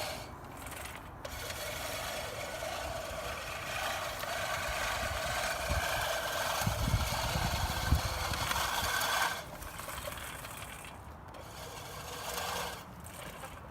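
Hand-powered push reel lawn mower being pushed through grass: the spinning blade reel makes a steady whirring, rasping sound as it cuts. The sound eases off about nine seconds in and picks up again near the end, with a few low bumps midway.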